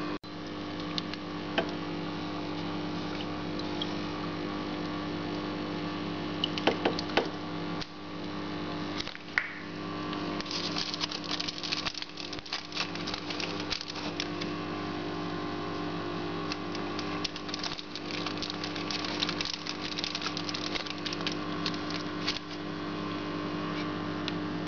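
A steady hum of several even tones, with scattered clicks and crinkling handling noise that gets busier in the second half.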